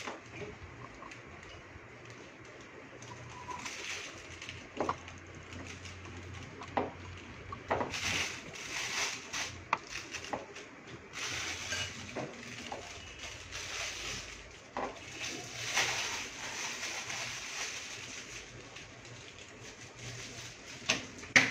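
Plastic piping bag crinkling and a silicone spatula scraping and tapping a glass bowl as whipped cream is filled into the bag, with scattered short clicks and scrapes.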